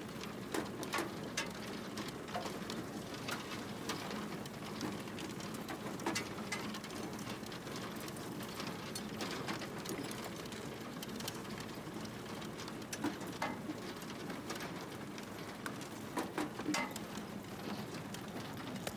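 Potatoes clattering with irregular light clicks as they tumble over the metal rods of a Hagedorn Wisent potato harvester's picking table, over a steady low machine hum.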